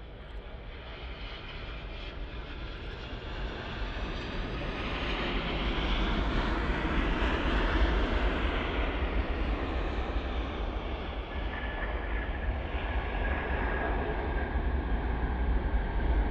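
Jet engines of a Boeing 787 Dreamliner landing: the noise builds as the airliner passes close by, peaks about halfway through, then carries on as it rolls out along the runway, with a steady whine in the second half.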